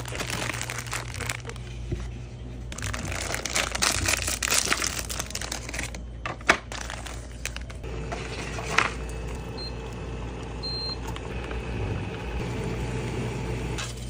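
Plastic food packaging being crinkled and handled, dense and crackly for about the first six seconds, with a sharp snap about six and a half seconds in. After that it settles to quieter handling over a faint steady hum.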